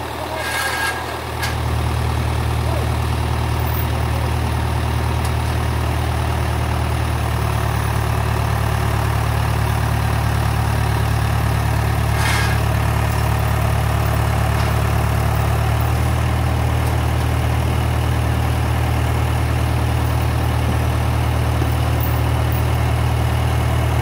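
John Deere farm tractor's engine running steadily at idle, a low even hum that picks up and gets louder about a second and a half in, then holds.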